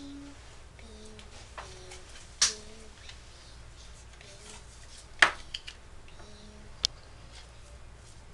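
Picture cards being laid down on a wooden tabletop: a few sharp taps, the loudest about five seconds in. Faint, short voice sounds come between the taps.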